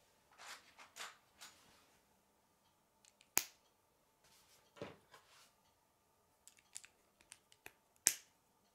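Plastic K'nex rods and connectors handled and snapped together: scattered small clicks and rattles, with a sharp snap at about three and a half seconds, a quick run of light clicks later on, and the loudest snap near the end.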